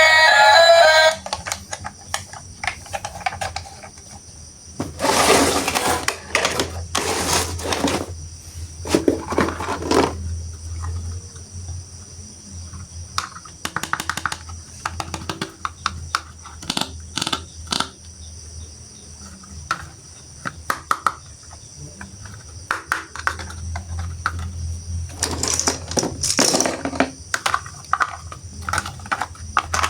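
Music stops about a second in, then scattered clicks, knocks and rustling from hands handling plastic toy train pieces and their packaging, with a few longer rustles, over a steady low hum.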